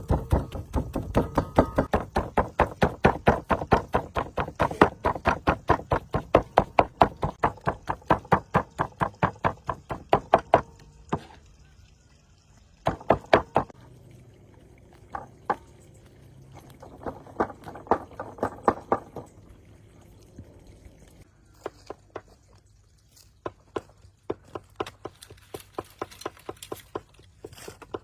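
Knife chopping on a cutting board in quick, even strokes, about four to five a second, for roughly the first eleven seconds. Two shorter runs follow, then scattered single knocks.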